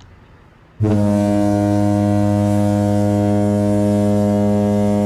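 Ship's horn giving one long, steady, low-pitched blast that starts about a second in and holds for about four seconds.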